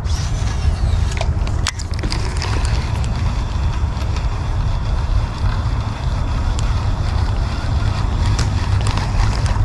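Wind buffeting an action camera's microphone: a steady low rumble, with a few faint sharp clicks.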